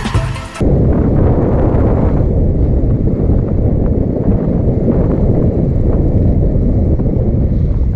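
Background music cuts off under a second in, giving way to a steady low rumble of wind buffeting the microphone on a moving motorcycle, with the bike's running drowned in it.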